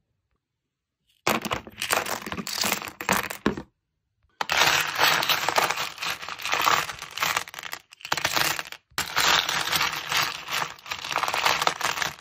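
Small tumbled crystal stones clattering and clinking against each other as a scoop digs through a plastic tub full of them. The sound comes in three or four bouts of a few seconds each, with short pauses between them.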